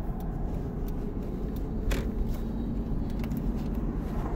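Steady low rumble of a car driving, heard from inside the cabin, with a few light clicks, the strongest about halfway through.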